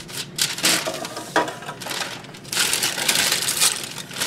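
Paper rustling and crinkling as the sheet under a roast is handled and gathered up, with one short knock about a second and a half in.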